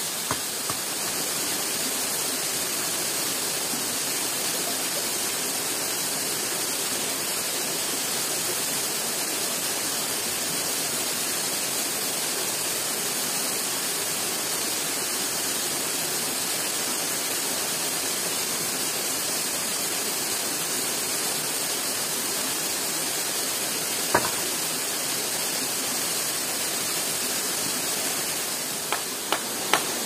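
Waterfall rushing steadily, a constant hiss of falling water. A single sharp knock comes about three-quarters of the way through, and a few more come near the end.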